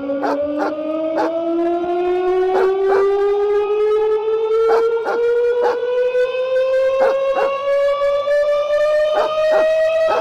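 Emergency alert alarm for a tsunami warning: a siren-like wail that climbs slowly and steadily in pitch, with short sharp clicks mostly in pairs about every two seconds.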